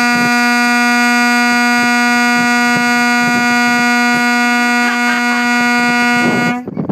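Truck horn held in one long, steady, loud blast at a single pitch, cutting off suddenly near the end.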